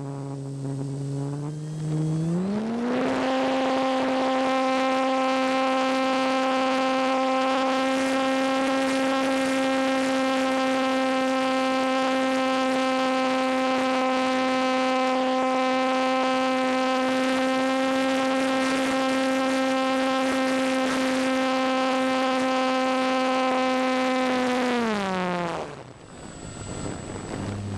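Electric motor and propeller of a Parkzone T-28 RC plane in flight, heard from a camera on board: a low hum rises to a steady high whine as the throttle is opened about two seconds in. The whine holds for over twenty seconds, then slides down and almost drops out as the throttle is cut near the end, and a low hum picks up again.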